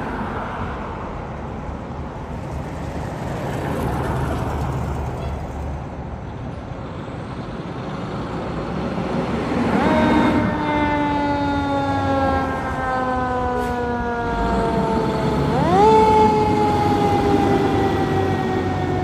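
Fire engine's diesel motor running, then its Federal Q mechanical siren winds up quickly and coasts down in a long falling wail, twice: about ten seconds in and again near the end.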